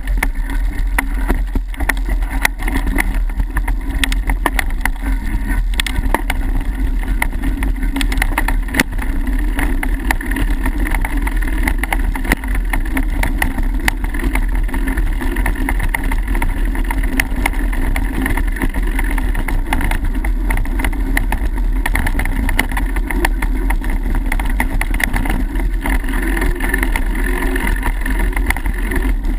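Mountain bike riding fast over a dirt trail: a steady rumble of tyres on dirt and wind buffeting the microphone, with frequent clicks and rattles from the bike over bumps.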